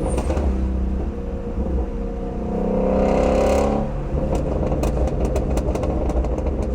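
Shelby GT350R's 5.2-litre flat-plane-crank V8 on its stock exhaust running under way, revving up about three seconds in. After the lift it pops and crackles in a quick, irregular string of sharp cracks for about two seconds: overrun burble with the throttle held barely open.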